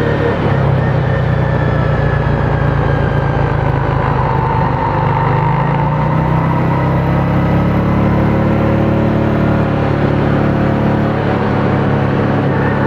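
Small 500 cc petrol engine of a child-size Bugatti Veyron replica car running steadily under way. Its note climbs a little about halfway through.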